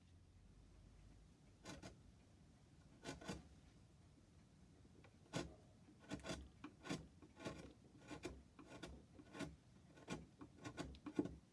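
Short rubbing strokes on wood, a few at first, then a faster irregular run of one or two strokes a second.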